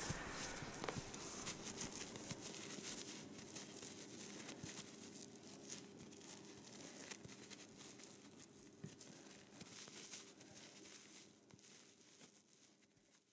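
Faint crackling and rustling with a low steady hum underneath, fading away toward the end.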